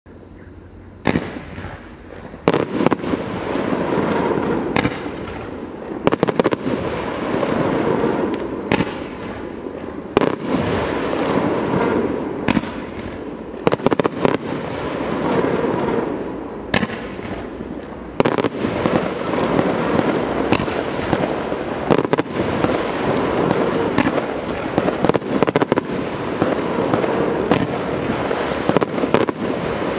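A 40-shot, 30 mm firework cake firing in a fan: a rapid string of sharp bangs from its shots, beginning about a second in, over a continuous rushing noise.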